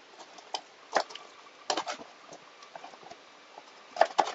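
Kitchen knife cutting raw chicken wings on a wooden cutting board: sharp knocks of the blade striking the board, one about a second in, a quick cluster near two seconds and the loudest pair near the end, with fainter clicks between.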